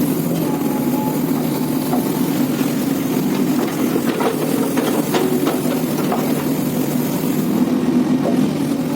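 Diesel engine of a SANY 335-C hydraulic excavator running steadily, with a few short knocks and clanks about halfway through.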